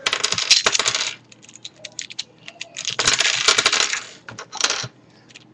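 Plastic pieces of a V-Cube 5 puzzle cube clicking and clattering as its layers are turned and it comes apart: two bursts of rapid clicks of about a second each, one at the start and one about three seconds in, with a shorter burst near the end.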